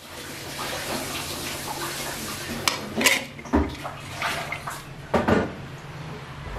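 Kitchen sounds: a steady rush of running water, then several clinks and clatters of dishes and utensils, the loudest about three and five seconds in.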